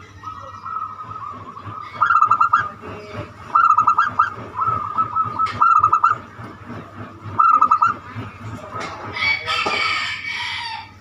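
Zebra dove (perkutut) cooing: several bouts of rapid staccato notes, each bout lasting about half a second, repeated every second or two. From about nine to ten and a half seconds in, a harsher, higher call sounds over it.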